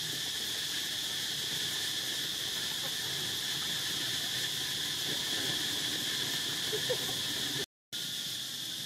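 Steady, high-pitched drone of an insect chorus, with a brief dropout near the end.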